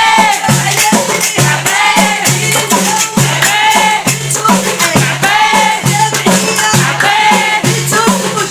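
Aounyat folk song: a woman's voice singing long, curving melodic lines over a steady percussion beat.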